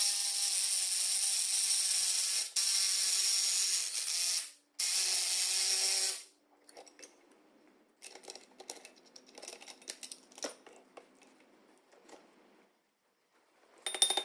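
A power tool driving a puller to pull a bulldozer's bull gear and final drive bearing off their splines. It runs steadily for about four seconds, stops briefly, and runs again for about a second and a half. After that come only faint, scattered ticks and clicks.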